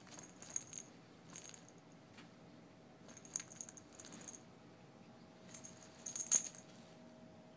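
A small jingle bell inside a cat toy, jingling in four short bursts as a cat paws and mouths the toy; the loudest jingle comes about six seconds in.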